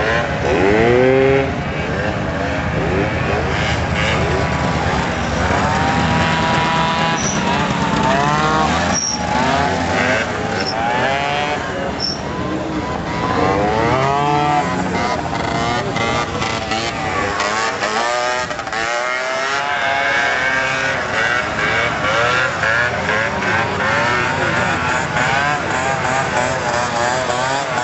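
Motor scooter engines revving up and dropping back again and again during stunt riding. Several engines overlap, their pitch rising and falling throughout.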